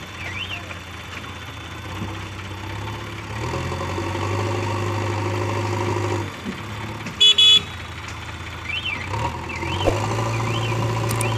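A JCB 3DX backhoe loader's diesel engine runs and revs up under load as the arm digs, then eases off about six seconds in. Two short, loud horn toots follow, and the engine revs up again near the end.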